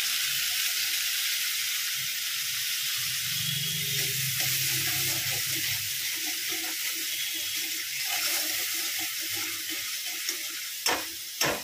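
Green chillies and ground spices sizzling in hot oil with a little water in a metal kadai while a spatula stirs them. A couple of sharp knocks near the end, the spatula striking the pan.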